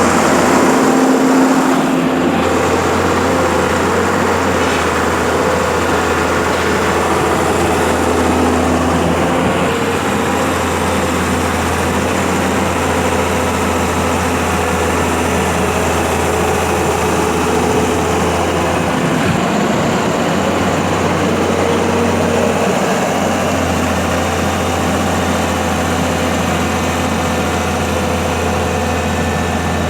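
A mobile crane's engine running steadily, with a constant low hum under a broad mechanical noise.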